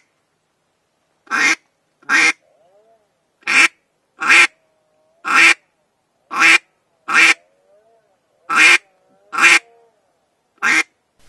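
Hand-held duck call blown in short, loud quacks, about eleven over ten seconds, mostly in pairs. The caller cups his palm around the end of the call and shifts its position to vary the tone of the quacks.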